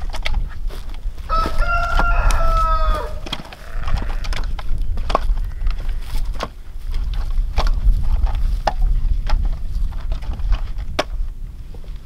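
Split firewood clunking as pieces are tossed onto a woodpile, a short knock every second or so. About a second in, a farm fowl gives one drawn-out call lasting nearly two seconds, falling in pitch at its end.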